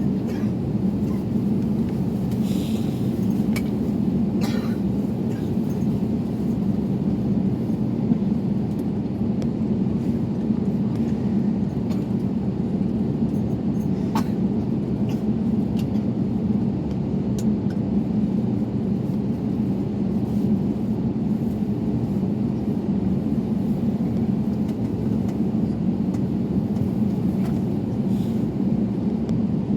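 Steady, even low rumble of an Airbus A321neo heard from inside the passenger cabin: engine and airflow noise, with a few faint clicks.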